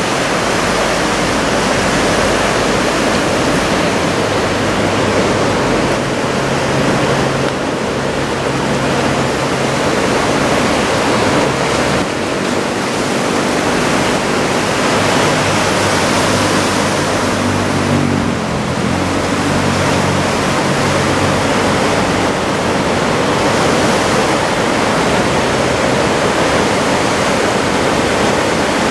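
Steady roar of heavy surf from a typhoon swell: a constant, loud rushing noise of breaking waves.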